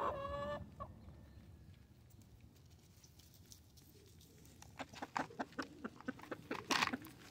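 A hen gives one short call, then backyard chickens peck at a pumpkin pie in its dish: a quick, irregular run of sharp pecking taps from a little past halfway.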